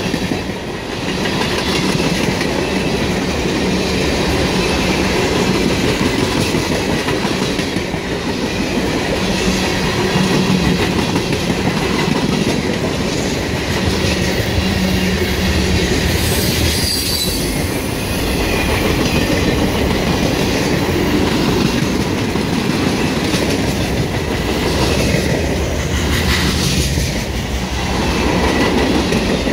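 Manifest freight train's cars rolling past, wheels clacking over the rail joints, with brief wheel squeals twice, about halfway through and near the end.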